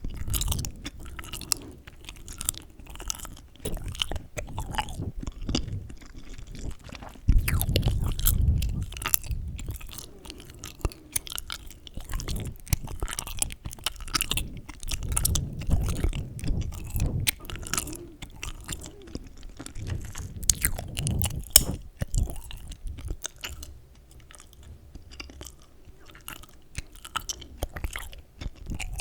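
Chewing gum close to the microphone: wet smacking and clicking mouth sounds in an uneven run, louder in a few stretches and softer near the end.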